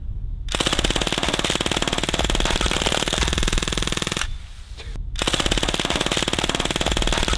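Full-auto MP40-replica BB submachine gun firing two long bursts, a very fast rattle of shots. The first burst stops about four seconds in, and the second starts again about a second later.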